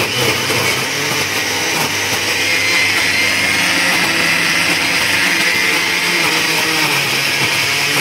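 Electric mixer grinder running steadily and loud, its blades grinding raw chicken with garlic, ginger and chillies into mince in the steel jar.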